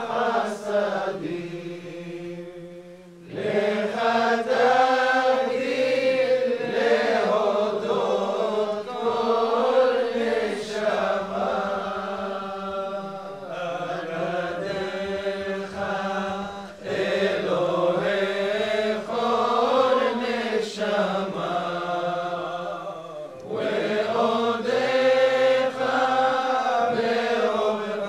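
Men's voices chanting a Jewish liturgical poem (piyyut) in the Babylonian bakashot style, in long drawn-out ornamented phrases that pause briefly about three seconds in and again a little past twenty seconds.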